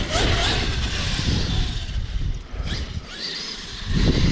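Traxxas X-Maxx RC monster truck's brushless electric motor whining as it drives and accelerates, the whine rising in pitch a few times over a noisy rumble.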